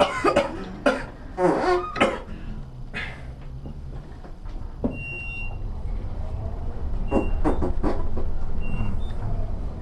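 Fake fart noises from a prank noisemaker: several short raspy blasts, over a low steady hum.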